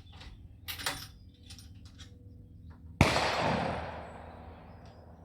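A single rifle shot about three seconds in, sharp and loud, its report rolling away over about a second. A few faint clicks come before it.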